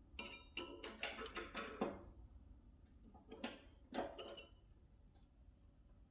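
Two short runs of light knocks and clinks, each with a brief ringing tone, the first at the start and the second about three and a half seconds in: hard objects handled against each other.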